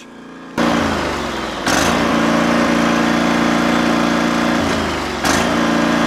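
17-horsepower water-cooled Kawasaki engine of a riding mower running steadily, then sagging in speed about five seconds in and picking back up. The battery terminal is being unhooked, and the engine tries to die without the battery connected, which the owner suspects is a charging system problem.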